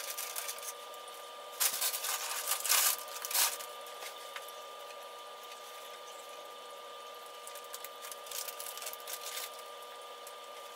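Plastic squishy packaging rustling and crinkling as packaged squishies are taken down from hooks, in a few short bursts about two to three and a half seconds in and more faintly near the end, over a faint steady hum.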